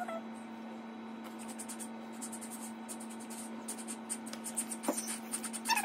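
Graphite pencil scratching across paper in quick repeated strokes as lines are drawn, the strokes coming thicker from about two seconds in, over a steady low hum.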